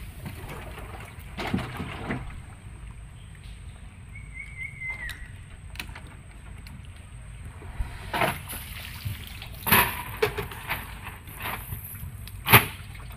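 Cast net being hauled back into a wooden boat by hand: water splashing and dripping off the mesh, with scattered knocks from the net and its weights against the hull, the loudest near the end.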